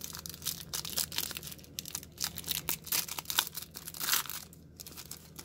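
Clear plastic wrapper on a pack of trading cards being torn and peeled open, a dense run of crinkling and crackling that thins out near the end.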